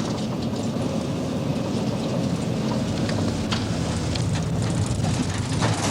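Steady rumble of a moving vehicle's engine and road noise, with faint scattered rattles.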